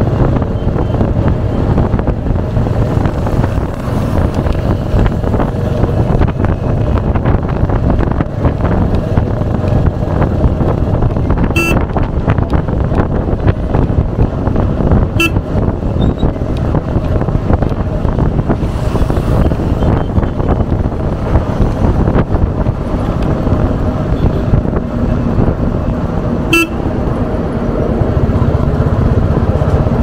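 Royal Enfield Hunter 350's single-cylinder engine running under way through its stock exhaust, steady throughout. Three short horn beeps from traffic sound over it.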